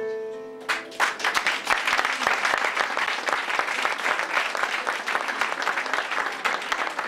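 The last held notes of background music, then an audience applauding from about a second in, a dense steady clapping.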